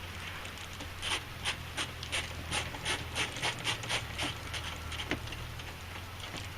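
A ratcheting screwdriver clicking in a quick run, about three clicks a second, as trim screws are turned into a truck door, with a steady low hum underneath.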